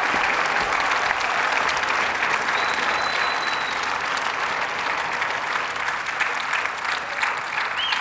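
A large audience clapping steadily in a sustained ovation.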